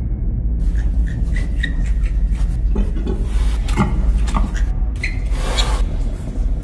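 Pigs in a farrowing shed: piglets giving short high squeaks in several scattered clusters, with a few lower grunting calls around the middle, over a steady low rumble.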